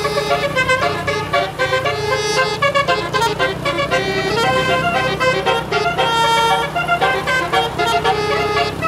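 Indonesian tour bus 'telolet' (basuri) multi-tone musical air horn playing a rapid tune of stepping notes, with the bus's engine humming low underneath.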